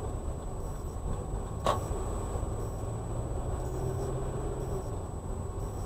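Steady low rumble of a car driving on a snow-covered road, heard from inside the cabin, with a single sharp click about a second and a half in.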